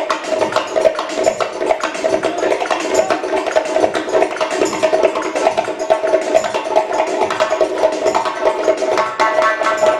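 Doira, the Uzbek frame drum, played solo with fast, dense finger and palm strokes, the drum head ringing at one steady pitch under the strokes. Near the end a pitched melody line comes in.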